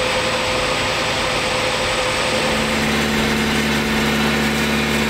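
Fire engine's engine-driven pump running steadily, drawing floodwater through large suction hoses; the pitch of its hum shifts about two and a half seconds in.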